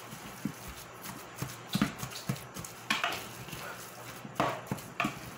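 Raw ground-beef mixture with breadcrumbs being kneaded by a gloved hand in a bowl: irregular wet squelches and soft slaps, a few each second.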